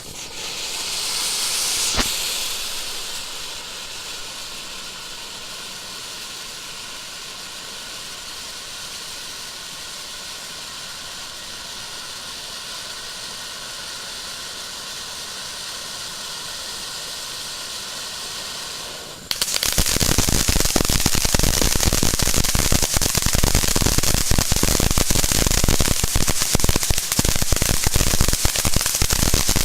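A ground firework spraying with a steady hiss, with a sharp pop about two seconds in. About nineteen seconds in, it switches suddenly to a much louder, dense crackling.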